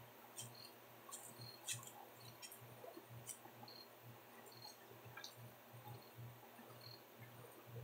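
Near silence: faint room tone with a low hum and a few scattered faint clicks.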